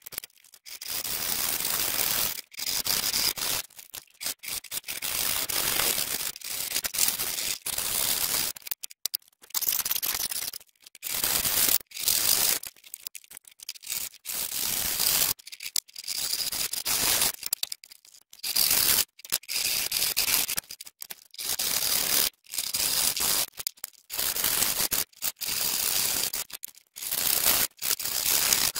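Handsaw cutting the corners off a clamped wooden block: rasping strokes in runs with short pauses between them.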